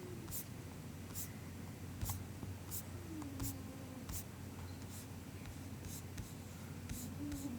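Soft, unhurried MacBook keyboard keystrokes: single key taps about one a second, irregularly spaced, with no fast bursts of typing.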